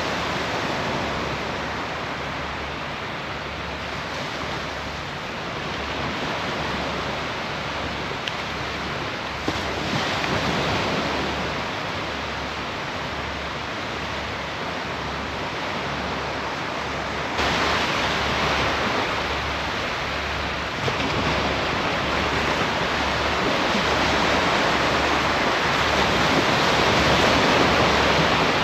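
Surf washing onto a sand beach: a steady rush of waves that swells and ebbs, louder at times, with wind rumbling on the microphone.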